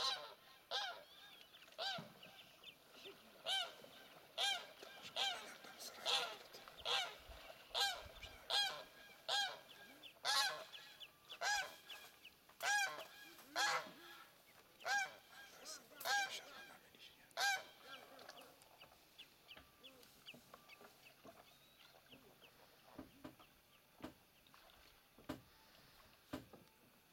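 Domestic geese honking over and over, more than one call a second, each call a short arching honk. The calls thin out and grow fainter after about eighteen seconds.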